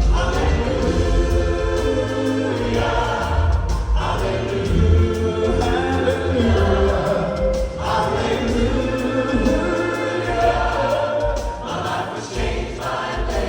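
Southern gospel male quartet singing in close harmony with band accompaniment, in long held phrases of a few seconds each.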